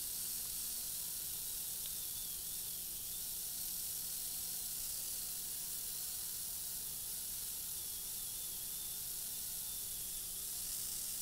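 Wheels of a 1950s Marx F3 locomotive's motor truck spinning under power against an abrasive track-cleaner block, a steady hiss over a faint motor hum, as the grime and oxidation are scrubbed off the wheel treads.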